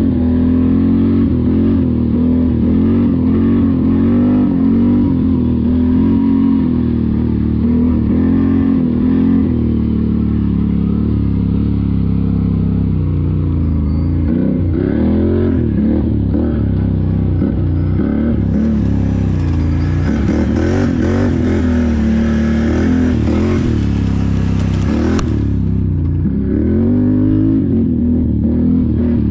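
Can-Am Renegade XMR 1000R ATV's V-twin engine running loud and steady, revving up and down repeatedly, with the pitch swinging most often in the second half.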